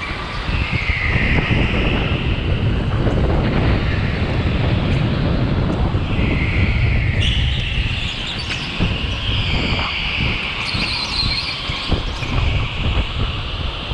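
Rental go-kart running at speed, recorded onboard. Heavy wind buffeting on the microphone lies over the kart's running noise, and a high whine rises and falls through the corners.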